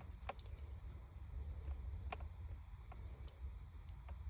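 Faint, irregular small clicks from the crown of a Longines automatic watch being turned to advance the date, over a steady low rumble of handling noise.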